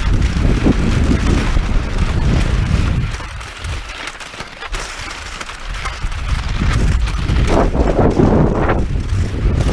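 Wind buffeting the microphone: a steady low rumble that eases off for a few seconds in the middle, then returns, with a few louder swishes near the end.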